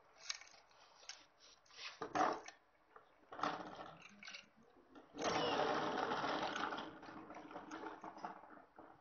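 Chainsaw chain clinking and rattling against the metal guide bar as it is fitted by hand. Separate clatters come in the first few seconds, then a louder continuous rattle starts about five seconds in and lasts about two seconds.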